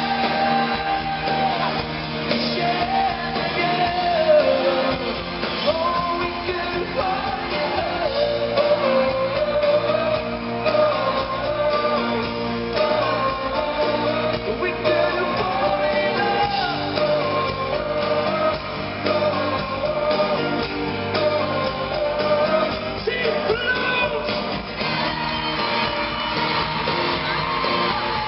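Pop-rock band playing a song live, a lead voice singing the melody over guitar, with some shouting. The sound echoes in a large arena.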